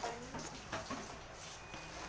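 Short cries from a domestic animal: a few brief, bending calls about half a second to a second in.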